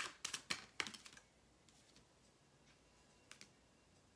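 Tarot cards being shuffled and handled: a quick run of sharp card clicks and slaps in the first second, then quiet apart from a couple of light clicks after about three seconds, as a clarifier card is drawn.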